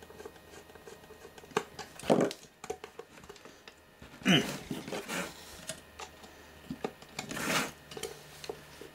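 Handling noise from working a metal tape-drive frame loose from its circuit board by hand and with a screwdriver: scattered clicks and knocks, with a few louder scrapes about two, four and a half and seven and a half seconds in.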